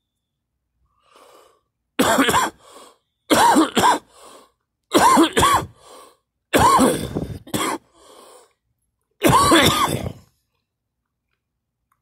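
A person coughing hard in five bouts, several of them two quick hacks in a row, with quieter in-breaths drawn between the bouts.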